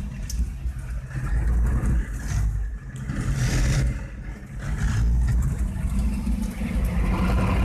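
Monster truck engine heard from inside the cab while driving over a dirt track, the engine note easing off a little past halfway and then building again, with a few knocks from the cab jolting.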